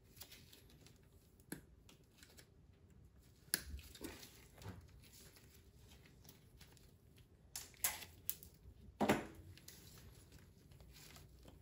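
Handling noises as an outboard engine's hose is pulled and worked out of the way: scattered rustling and rubbing with a few sharp clicks and knocks, the loudest about nine seconds in.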